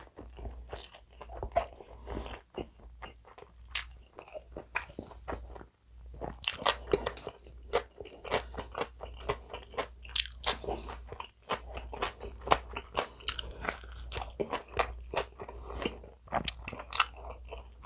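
Close-miked chewing and biting of bacon potato pizza: irregular crisp crunches of crust and wet mouth sounds. It goes briefly quieter just before six seconds in, then grows louder and denser with fresh bites.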